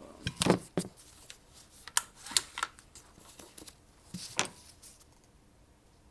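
A Panzerarms AR12 shotgun's barrel being lined up and fitted back into the gun: a series of sharp clicks and knocks of metal parts being handled, loudest about half a second in and again around two and a half and four and a half seconds.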